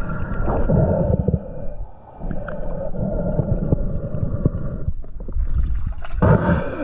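A diver breathing through a snorkel, picked up by a mask-mounted GoPro: loud, muffled rushing breaths, with short pauses about two seconds in and again about five seconds in.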